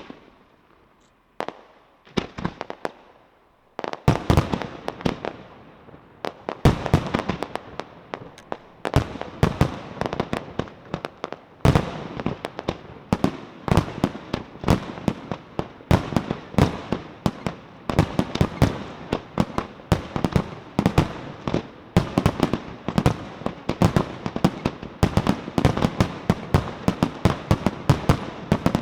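Fireworks display: a few separate bangs at first, then from about four seconds in a dense, continuous run of explosions, several a second.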